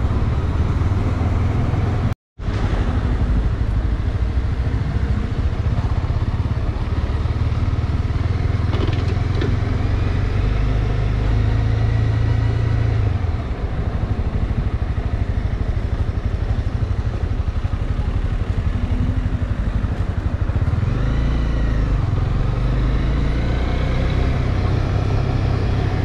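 Honda CB300R's single-cylinder engine running steadily while riding, with a heavy low rumble. The sound cuts out for a moment about two seconds in, and the engine note rises and falls a few times near the end.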